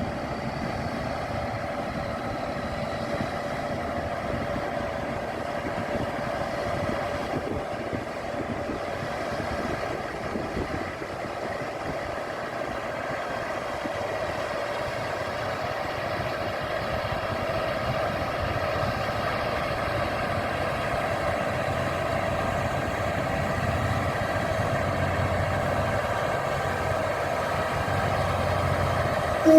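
Engine of a KiHa 183 diesel railcar running steadily: a low rumble with a steady hum on top.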